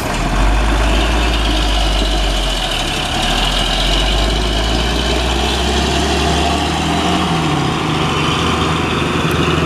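Diesel engine of a heavy three-axle tronton truck running as the truck drives off, a deep steady rumble that swells just after the start.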